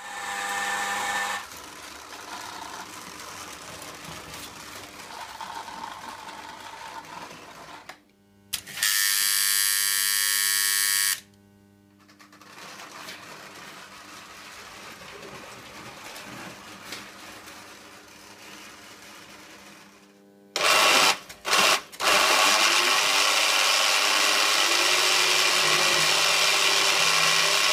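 Small electric motor of a Lionel toy coal loader running its conveyor: a steady mechanical hum and buzz. It gets much louder in a spell of about two and a half seconds near the middle, then again after a few short bursts, and stays loud through the last six seconds.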